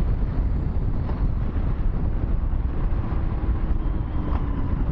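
Harley-Davidson Low Rider S V-twin running at low speed through a turn, heard through a helmet microphone with heavy wind noise over it.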